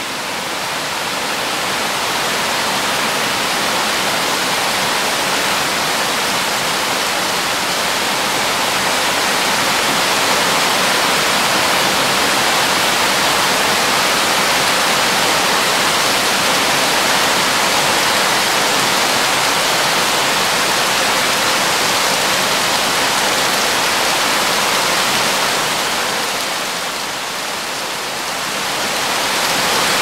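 Steady rush of a tall waterfall pouring down a rock face. The sound grows over the first couple of seconds, dips briefly near the end, then swells again.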